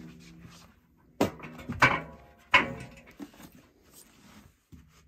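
Handling knocks as a metal air rifle and its parts are moved about on cardboard boxes: three sharp knocks, about a second, two seconds and two and a half seconds in, the middle one with a brief metallic ring.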